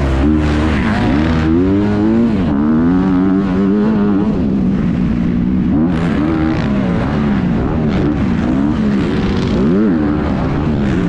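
Motocross bike engine heard from on the bike, revving up and dropping back several times as the throttle is opened and closed while riding.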